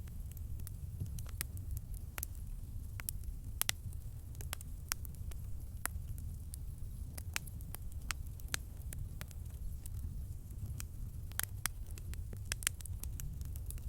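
Wood campfire burning, with irregular sharp crackles and pops over a steady low rumble of the flames.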